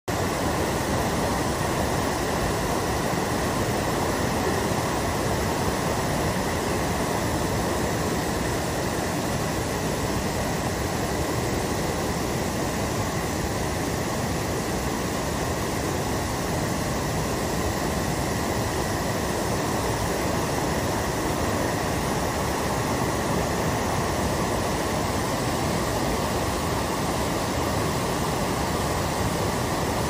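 Waterfall and white-water rapids rushing steadily, an even, unbroken hiss of falling and churning water.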